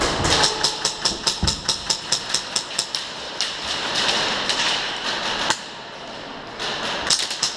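Airsoft guns firing on full auto, rapid evenly spaced shots at about ten a second, in long bursts that let up around six seconds in and pick up again near the end.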